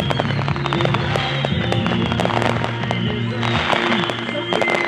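Aerial fireworks going off in quick succession, many sharp pops and crackles, over music playing held notes that change every second or two.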